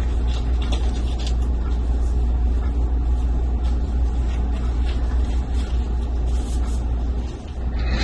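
Steady low rumbling hum, with faint crinkling now and then as disposable gloves are pulled onto the hands.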